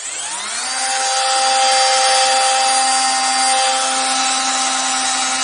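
WORKPRO 12 V cordless mini angle grinder switched on and running free. Its motor whines up to speed in under a second, then holds a steady whine.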